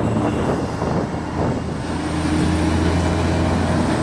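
Road traffic passing: cars go by, then a tractor-trailer truck hauling a shipping container approaches, its low engine drone building over the second half.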